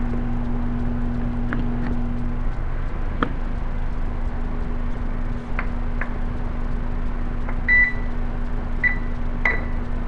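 A steady low electrical hum, with a few faint clicks and three short high-pitched electronic beeps near the end.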